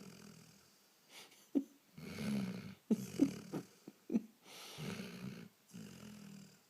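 Snoring: low rasping breaths that come and go every second or two, with a few short, sharp catches in the breathing near the middle.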